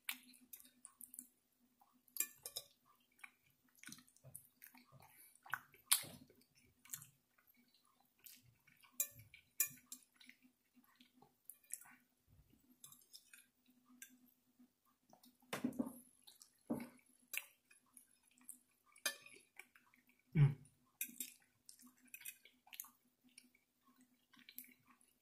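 Close-up eating sounds: a metal fork clicking and scraping on a glass plate, with chewing and wet mouth noises in short, scattered bursts. One louder low thump comes about twenty seconds in, over a faint steady hum.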